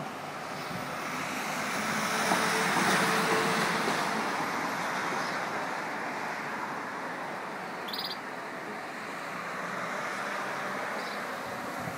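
A persistent, oscillating rumble from the sky that sounds like aircraft, swelling about two to four seconds in and then easing off.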